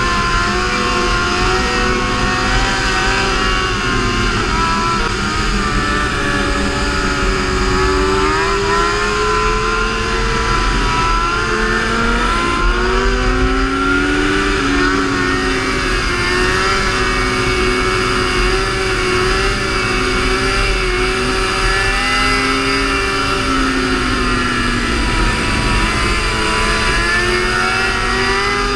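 Sport-bike engines running at road speed, their revs rising and falling in slow swells, over a steady low wind rumble on the microphone.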